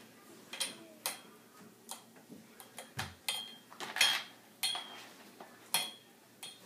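Irregular light clicks and knocks as a multi-arm floor lamp and a large pen display on its adjustable stand are handled and moved, with a dull thump about three seconds in and a louder knock about four seconds in.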